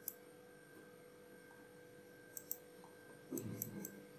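A few faint mouse clicks: one at the start, a pair about two and a half seconds in, and three more near the end. A low steady electrical hum runs underneath.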